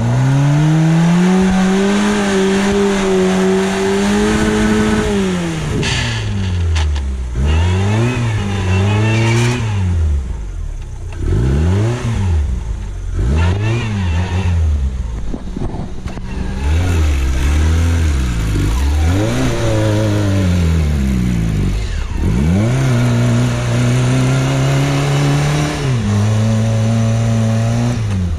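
Suzuki SJ410 off-roader's engine revving hard in deep snow. It holds high revs for several seconds, then rises and falls again and again in quick bursts as the vehicle fights for grip, then holds high again near the end.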